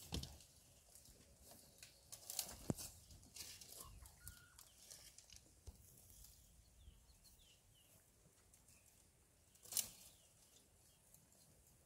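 Dry branches and twigs cracking and rustling as African elephants break and strip browse from a felled tree, a scatter of sharp snaps with a louder crack and rustle near the end.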